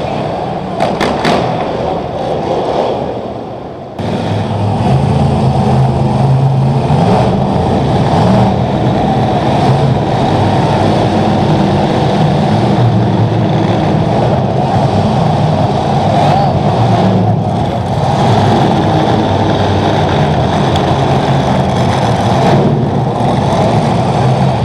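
Monster truck engines running loud and revving in a steady drone, coming in abruptly about four seconds in; before that, quieter vehicle noise.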